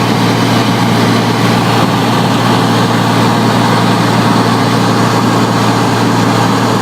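Cessna L-19 Bird Dog's six-cylinder Continental O-470 piston engine and propeller running at a steady, unchanging pitch.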